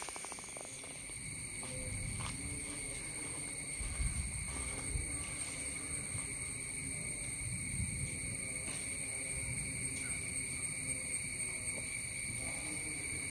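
Steady high-pitched drone of an insect chorus, several even tones held without a break. A few low rumbles on the microphone come and go, the strongest about four to five seconds in.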